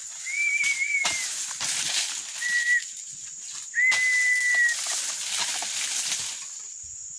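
A long-pole cutting blade jabbed into the bases of oil palm fronds: a string of scraping, rustling strikes. Four short, steady, high whistling tones come in among them.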